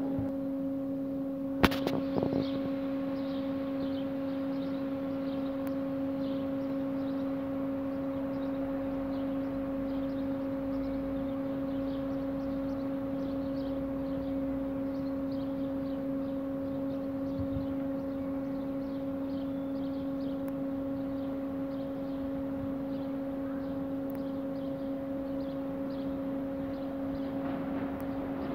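A steady electrical hum made of two held tones that does not change, with a single sharp click about two seconds in. Near the end the noise of a train coming in begins to rise under it.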